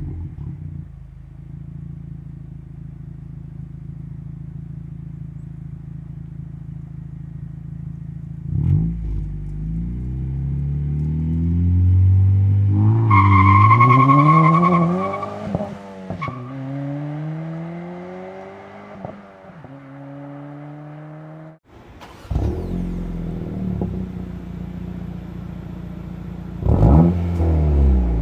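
Car exhaust through a MAPerformance aftermarket cat-back on a 1.5-litre turbocharged four-cylinder. It idles steadily, then is blipped and revved several times, the pitch rising and falling. After a sudden cut, a car with an A'PEXi N1-X Evolution Extreme cat-back idles and is revved twice near the end.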